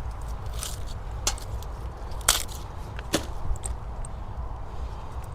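Cauliflower plants being cut and pulled up: a few sharp crisp snaps and crackles of thick stems and leaves, over a low steady rumble.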